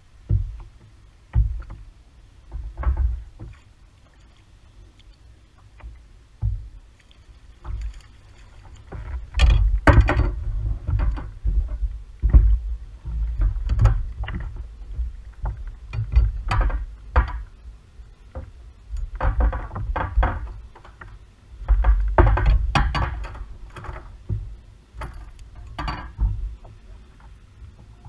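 Irregular knocks and bumps on a plastic fishing kayak's hull, with water sloshing, as the angler shifts his weight and reaches over the side into the water. The knocks come in busy clusters, with a few quieter gaps.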